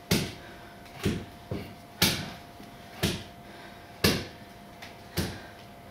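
Sharp knocks in a steady beat of about one a second, once two in quick succession, each with a short ring after it.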